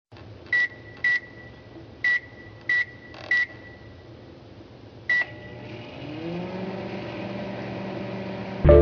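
Microwave oven keypad beeping: five short high beeps as buttons are pressed, then one more beep about five seconds in. The oven then starts running with a hum that rises in pitch as it spins up, and music cuts in at the very end.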